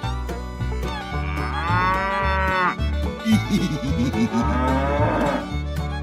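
A cow mooing twice, a first moo about a second and a half in and a second, longer one in the middle, over background music with a steady beat.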